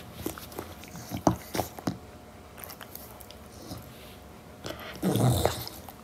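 Chow chow puppy fussing as it wakes: short wet mouth smacks and clicks over the first two seconds, then a brief, loud, low grumble about five seconds in.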